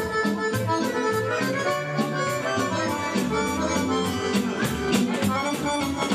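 Serbian folk band music: an accordion carries a lively melody over drums and guitars, with a steady beat.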